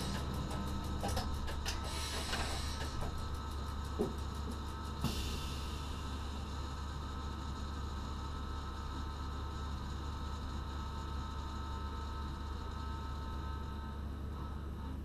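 Steady electrical hum in the driver's cab of a Z 6400 electric multiple unit standing at a platform. Rapid ticking in the first few seconds, two short knocks about four and five seconds in, and a brief burst of air hiss about five seconds in that fades within a second.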